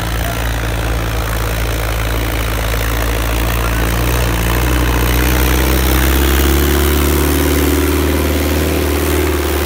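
Diesel farm tractor running hard under load as it drags a heavy disc harrow through ploughed soil, growing steadily louder as it draws near and loudest about two-thirds of the way through.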